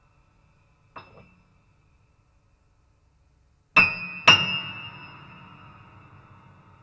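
Grand piano notes struck high in the treble: one soft note about a second in, then two loud strikes half a second apart a little past the middle, left to ring and slowly fade.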